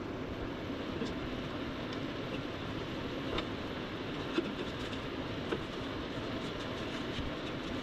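A steady droning background noise, with a few light taps and clicks as rubber hydraulic steering hoses are handled and fitted under the Jeep.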